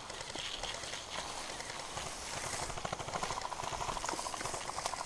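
Dry, tall weed stalks rustling and crackling as a person pushes through them on foot. A faint rapid ticking of airsoft gunfire comes in during the second half.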